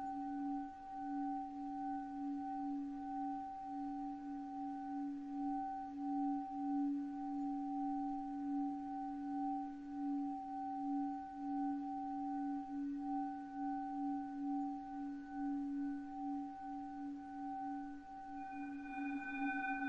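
Time-stretched sound effect: a sustained ringing drone of a few steady, slowly pulsing tones, like a singing bowl. Higher tones join near the end.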